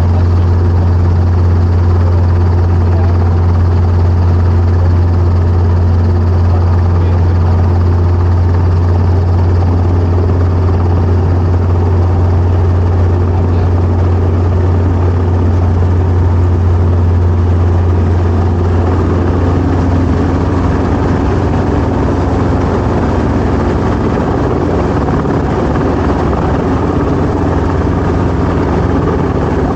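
Training helicopter's engine and rotor running with a steady, loud low drone. About two-thirds of the way through, the drone weakens, a higher hum comes in and the overall level drops slightly.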